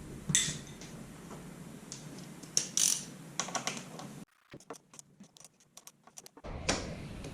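Scattered light clicks and taps of hand tools and small parts being handled while working on a motorcycle's front end, at irregular intervals, with a near-silent pause of about two seconds in the middle.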